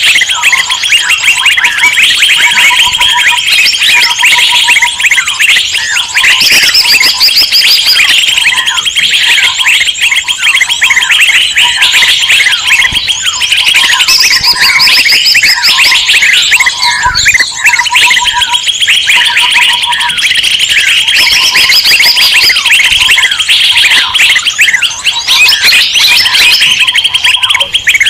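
Dense, loud chorus of many small birds chattering and chirping at once, a bird-lure recording, with short runs of a lower repeated note recurring under the chatter.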